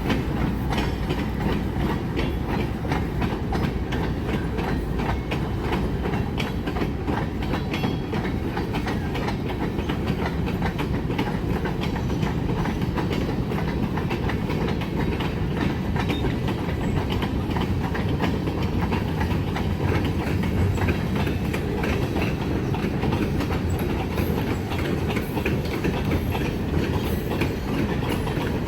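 Freight train rolling along the track: a steady low rumble with steel wheels clicking over the rail joints.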